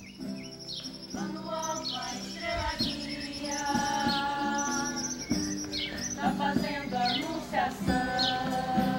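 Folia de Reis music: stringed instruments and held notes playing, with birds chirping repeatedly over it in short falling high calls.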